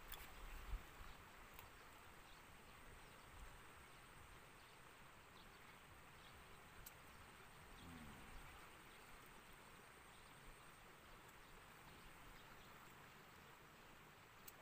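Near silence: faint outdoor ambience, with a single short thump about a second in.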